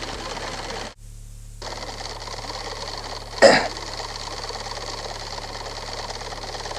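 Steady recording hiss with a low electrical hum. The hiss drops out briefly about a second in, and one short, louder sound comes about three and a half seconds in.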